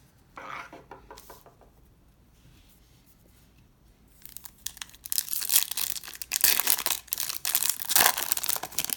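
A trading card pack's foil wrapper being torn open and crinkled: a dense run of crackly rips and crinkles starts about four seconds in, after only faint rustling.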